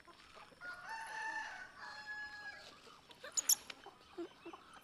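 A rooster crowing: one long call of about two seconds, starting about half a second in. Two sharp clicks follow about three and a half seconds in, louder than the crow.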